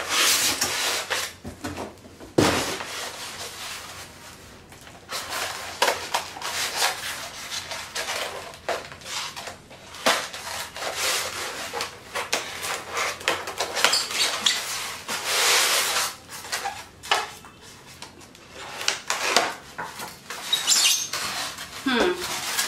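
Cardboard and polystyrene foam packaging being handled while a boxed set of glass containers is unpacked: irregular scraping, rubbing and rustling as a box slides out of a carton, tape is cut with scissors and the box is opened, with a sharp knock about two seconds in.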